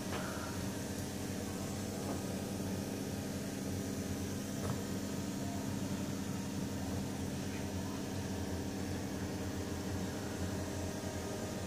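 Steady low mechanical hum with an even hiss over it, with a faint click or two.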